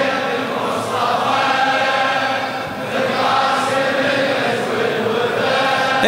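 A crowd of mourners chanting a lamentation refrain together, many voices blending into one smeared melody: the congregation's response to the reciter in a Shia mourning chant (latmiya).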